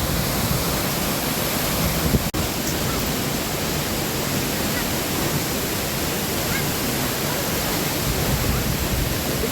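Syndicate Waterfall, a 75-foot cascade, pouring into its pool in a steady, dense rush of falling water. The flow is high, pounding a little. A momentary dropout about two seconds in.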